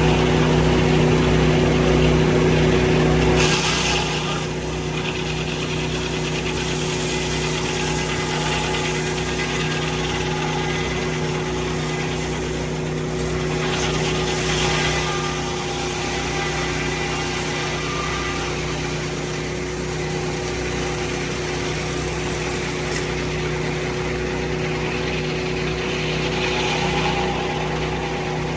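Portable sawmill's engine running steadily, louder for the first few seconds and then settling a little lower.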